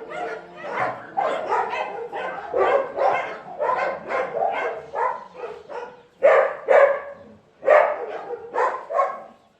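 Dogs barking over and over in quick succession, about two to three barks a second, the loudest barks a little past the middle.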